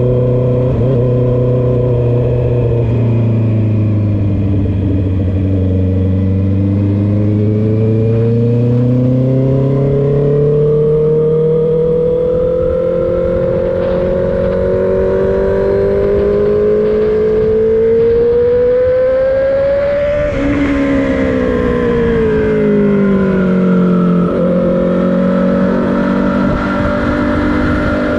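Honda CB650R's inline-four engine running loud and open through a full Kleber Atalla exhaust with the dB killer removed. The note eases down, then climbs slowly and steadily for over ten seconds, drops sharply about twenty seconds in, and settles into a lower, steady note.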